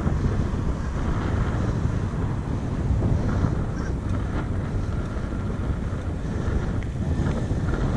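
Steady, low wind noise buffeting the microphone of a cyclist riding along.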